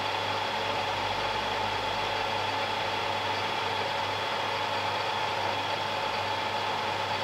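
Warco WM180 mini lathe running at a constant speed, turning down copper bar stock with a 1.5 mm depth of cut: a steady motor hum with a constant whine.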